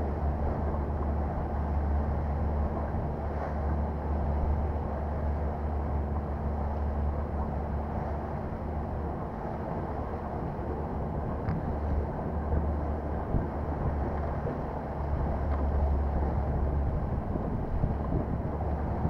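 Mercury Verado outboard engine running steadily with the boat underway: a low, even drone under wind noise on the microphone, easing off a little midway.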